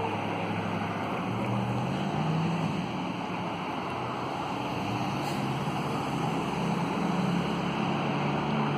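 An engine running, its low hum shifting up and down in pitch, over a steady rushing noise.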